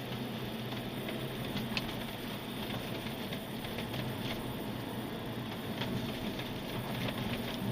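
Steady running noise of a car with a low hum and many scattered light clicks and crackles. No horn blast is heard.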